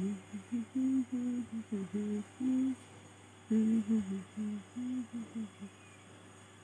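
A person humming a short tune in two phrases, a string of stepped notes with a brief pause of about a second between the phrases.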